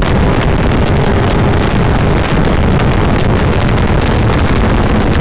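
Heavy wind rushing over the microphone of a moving motorcycle, with the Honda CBR650F's inline-four engine running steadily underneath.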